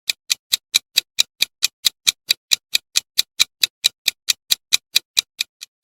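Quiz countdown timer sound effect: a clock-like ticking, even and steady at about four to five ticks a second, stopping shortly before the end.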